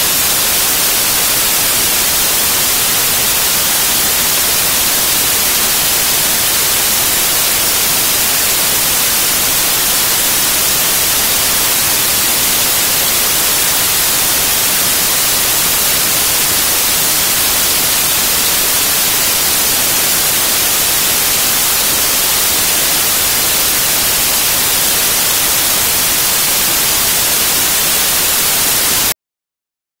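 Television static: a steady, loud hiss, brightest in the treble, that cuts off suddenly near the end.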